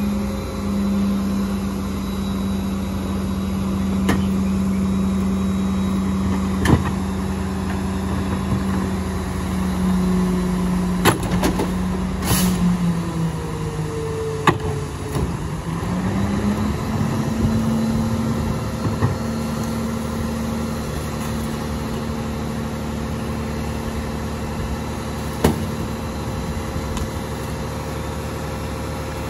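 Idling diesel engine of a McNeilus split-body rear-load garbage truck, a steady hum whose pitch dips and then rises about halfway through, settling a little higher. A few sharp knocks and bangs as bags and a cart of trash go into the rear hopper.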